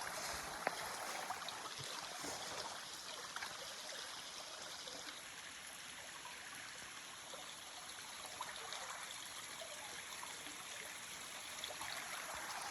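Small creek at a trail water crossing, its water running steadily.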